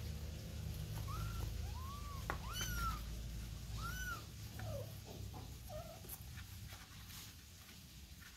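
Kittens mewing: about six short, high-pitched calls that rise and fall, over a low steady rumble that stops about four seconds in. The calls die away after about six seconds.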